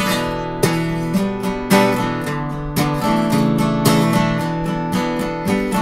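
Solo acoustic guitar in an instrumental break, played with the picking hand at the soundhole: quick picked notes in a steady rhythm with low bass notes ringing underneath.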